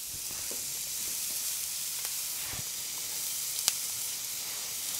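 Pork patties sizzling steadily on a hot cast-iron griddle plate, with one sharp click about three and a half seconds in.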